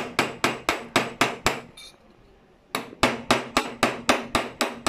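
Jeweller's hammer forging the metal base of a piece of jewellery that a stone will be set on, striking evenly at about four a second. The strikes pause for about a second midway, then start again.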